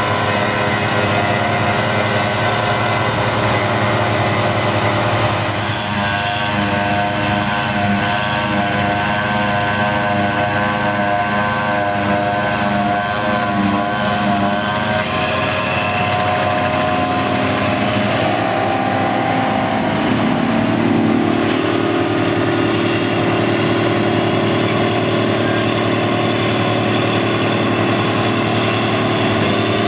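John Deere 7400 self-propelled forage harvester running under load while picking grass silage, with a Valtra tractor's engine alongside as it draws the trailer being filled. A loud, steady engine drone whose pitch shifts twice, about six seconds in and again about twenty seconds in.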